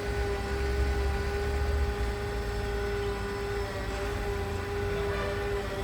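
Concrete pump running steadily: a constant whine over a low engine rumble, the rumble easing about two seconds in.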